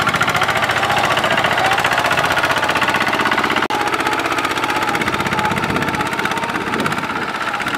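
Single-cylinder diesel engine of a Kubota two-wheel walking tractor running hard with a fast, steady chugging beat, pulling a loaded rice trailer through deep mud. The sound breaks off for an instant about halfway through, then the engine carries on.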